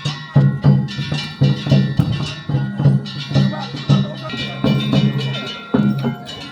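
Japanese festival float music (Gion-bayashi): drums and percussion struck in a steady rhythm, about three beats a second, with sustained higher tones ringing above.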